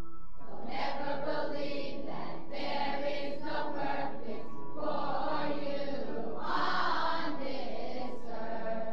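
A chorus of voices singing a camp team song together over instrumental accompaniment, played from a 1979 vinyl record. The voices come in about half a second in and drop out near the end, leaving the accompaniment's held notes.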